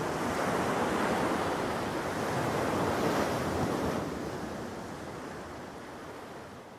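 Ocean surf washing steadily, fading out over the last few seconds.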